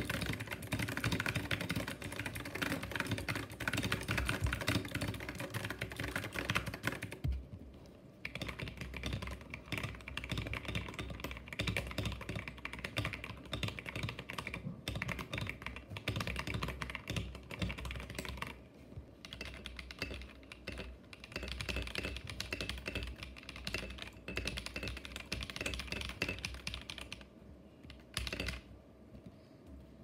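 Fast typing on mechanical keyboards, a dense clatter of keystrokes. The clatter changes character after about seven seconds as a second keyboard is typed on, and it breaks off in short pauses near the end.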